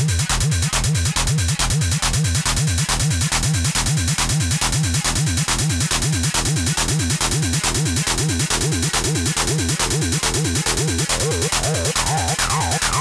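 Techno track with a driving, repetitive kick drum and dense, fast percussion. Near the end a run of falling synth sweeps comes in.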